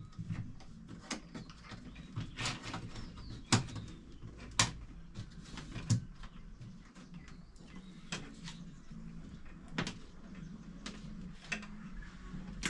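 Scattered clicks and taps of wires and hand tools being handled while an electrical switch board is wired, with a low steady hum underneath.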